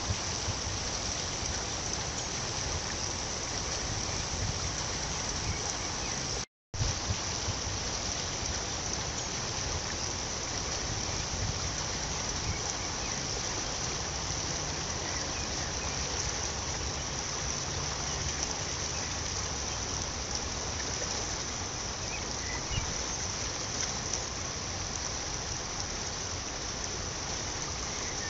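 Steady rush of flowing river water, with a brief dropout about six seconds in.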